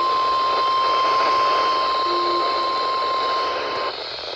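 NOAA Weather Radio warning alarm tone: one steady, unwavering tone that sounds the alert for the tornado watch message. It is heard through heavy radio static hiss and cuts off about four seconds in.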